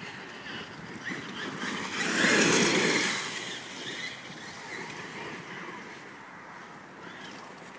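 Brushless electric RC truck (Traxxas E-Revo) running on 4S LiPo, its motor whine rising and falling with throttle over the rush of its tyres on gravel and leaves. It is loudest as it passes close about two seconds in, then fades as it drives off down the path.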